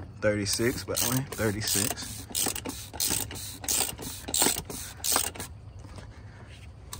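Ratchet wrench clicking in a quick run of strokes, two to three clicks a second, as the new oil filter is tightened down on the truck's engine. The clicking stops about five and a half seconds in.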